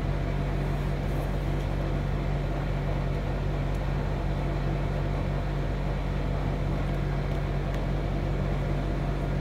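Steady low background hum, unchanging throughout.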